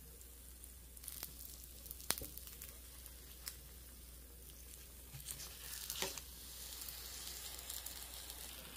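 Faint sizzling of oil under glutinous-rice batter cakes frying on low heat in a nonstick pan, with a few light clicks of a spatula against the pan. The sizzle swells from about five seconds in as a cake is flipped onto the freshly oiled side.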